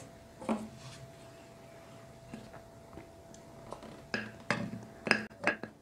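A metal spoon clinking and scraping against a ceramic plate as flour and dry spices are stirred together. There is one knock about half a second in, then a quick run of sharp clinks in the second half.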